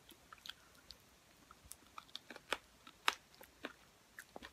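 A person chewing a bite of hot chicken wing: faint, irregular mouth clicks and smacks.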